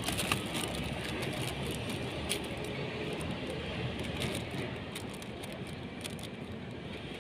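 Steady outdoor background noise of distant road traffic, with a few short light clicks scattered through.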